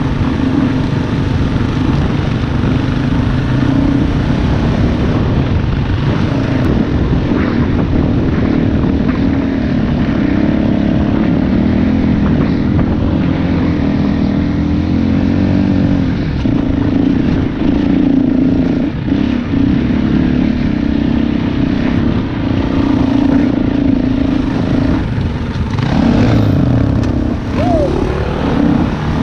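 KTM dirt bike engine running steadily under throttle as it climbs a slippery, snowy track, heard close up from the bike.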